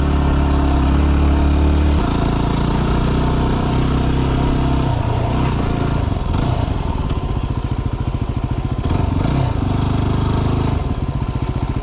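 Yamaha WR250R dual-sport's single-cylinder four-stroke engine running at low trail speed, its pitch dipping and rising with the throttle a few times. Near the end it settles into an even, low beat.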